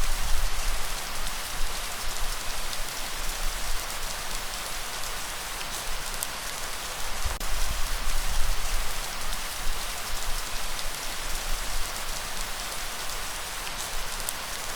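Steady rainfall, an even dense hiss with a few sharp drop ticks standing out and a low rumble that swells and fades underneath.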